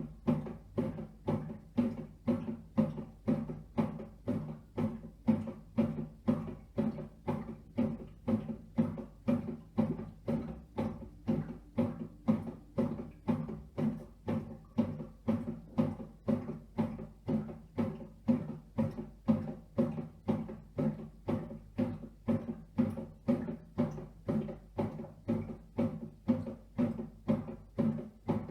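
Redmond RBM 1908 bread maker's motor driving the kneading paddle in short, even pulses, about two a second, each a brief hum.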